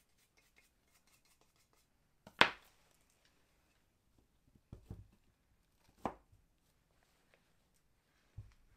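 Knocks and thumps from handling a plaster mold and clay on a worktable: one sharp, loud knock about two seconds in, then softer thumps around five and six seconds in and once more near the end.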